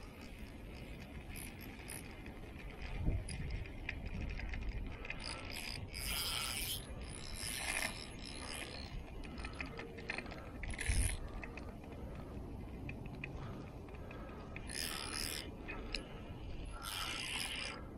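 Spinning reel being cranked in several short bursts with pauses between, winding braided line onto the spool, with a couple of dull knocks from handling the rod.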